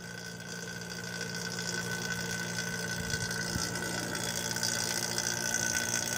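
Small electric AC vacuum pump running steadily, pulling a vacuum on a vehicle air-conditioning system through a manifold gauge set. It gives a steady hum with a high hiss that grows a little louder after the first second.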